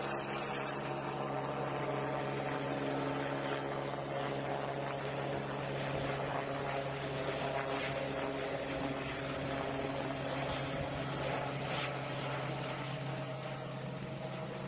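Helicopter flying overhead, its rotor and engine heard as a steady drone through the windshield from inside a vehicle.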